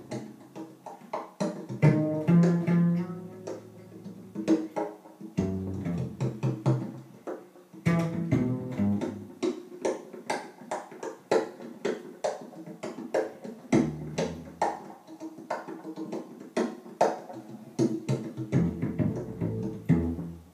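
Upright double bass played pizzicato, its plucked low notes moving in a bass line. Over it runs a steady pattern of sharp percussive hits.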